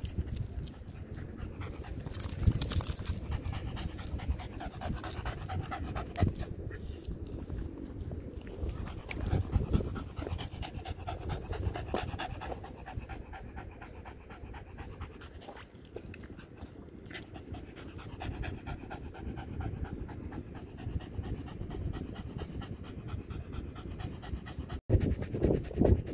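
A Scottish terrier panting rapidly and steadily with its tongue out, out of breath from walking.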